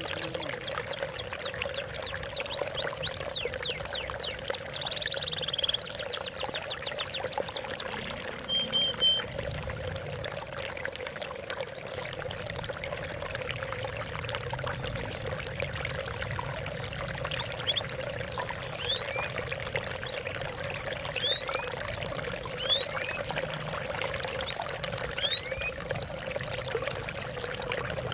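Water trickling and splashing steadily, with a small songbird singing over it: a fast trill of repeated downward-sweeping high notes for the first nine seconds or so, then scattered single chirps.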